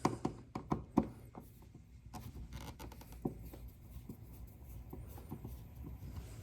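Small clicks and faint scraping as a wall-outlet receptacle is straightened in its box and its mounting screw is worked with a screwdriver: a quick run of sharp clicks in the first second, then light scratching and a single click a little after three seconds.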